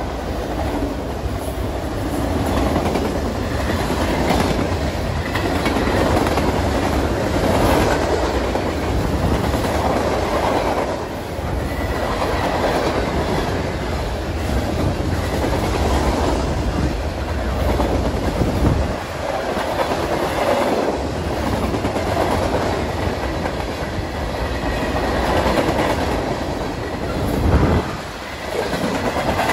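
Freight train cars rolling past at close range, a continuous loud noise of steel wheels on the rails that dips briefly near the end.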